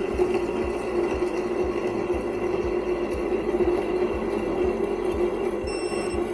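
WEISAN RC210E800 mini bench lathe running an automatic thread-cutting pass, its spindle turning while the carriage feeds the threading tool along a steel shaft under the electronic leadscrew. It makes a steady motor-and-gear hum with faint regular low knocks.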